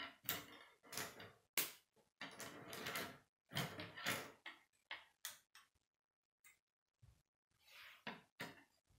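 Plastic K'nex rods and connectors being handled and snapped together: a string of sharp clicks and short scraping rattles with brief silent gaps, quieter for a moment about two-thirds of the way through.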